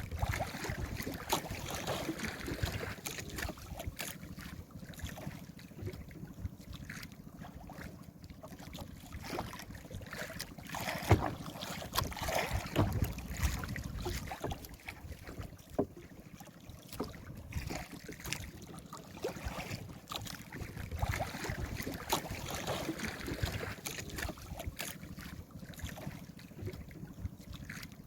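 Water sloshing against a small fishing boat at sea with wind on the microphone, broken by scattered knocks; the loudest is a sharp knock about eleven seconds in.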